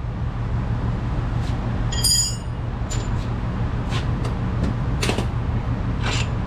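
Steady low machine hum under a series of short metallic clicks and knocks from hand tools and bolts being handled during front strut removal, with one ringing metal clink about two seconds in.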